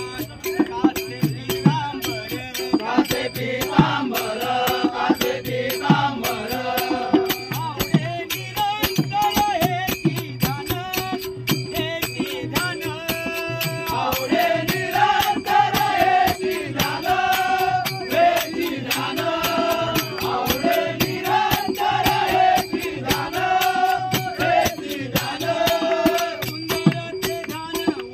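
A Marathi devotional abhang sung by a bhajan group, a lead voice singing long phrases, over fast, steady, rattling percussion and a held note underneath.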